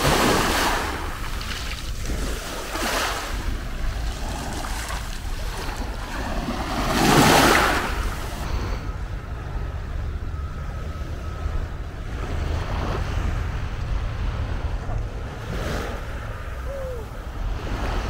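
Small Mediterranean waves washing in on a pebble beach, each one swelling into a hiss every few seconds, the biggest about seven seconds in. A low wind rumble on the microphone runs underneath.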